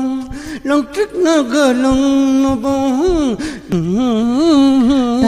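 A man singing unaccompanied, holding long notes whose pitch wavers and bends, with short breaks for breath between phrases.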